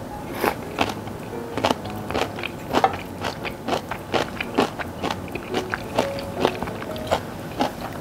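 Close-miked mouth sounds of a person eating Chapagetti instant jjajang noodles: irregular wet chewing clicks, several a second. Soft background music plays underneath.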